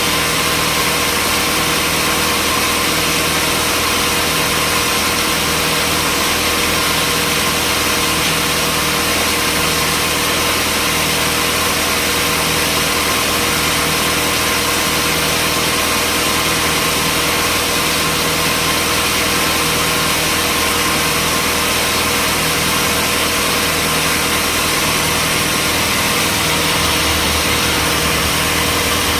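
Sawmill machinery running steadily, a constant loud mechanical noise with a steady hum and whine and no change in load.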